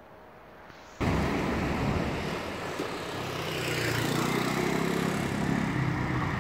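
Street traffic, starting suddenly about a second in: the noise of passing vehicles, with a motor engine's hum growing louder from about three seconds in as a motor scooter approaches.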